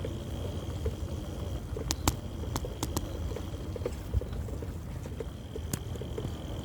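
Riding an electric bicycle: a steady low rumble of wind and road with a thin steady high whine. Small ticks and rattles run throughout, with a cluster of sharp clicks about two seconds in and one more near the end.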